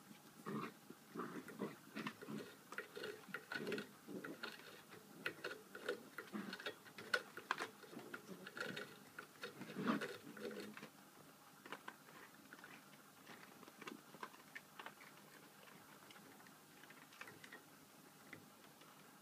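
Border Collie puppies play-fighting, giving many short growls and yips. They are busiest in the first half and grow sparser and quieter after about eleven seconds.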